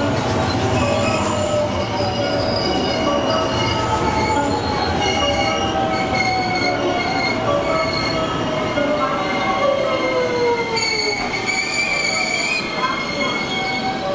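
JR electric commuter train slowing into the platform: its motor whine falls steadily in pitch as it brakes, over steady high wheel and brake squeal and rail noise.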